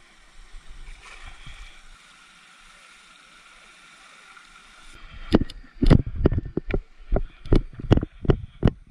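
Footsteps on a gravel path, a regular walking pace of about two and a half steps a second, starting about five seconds in after a few seconds of faint background noise.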